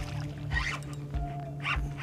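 Background music with a steady low beat.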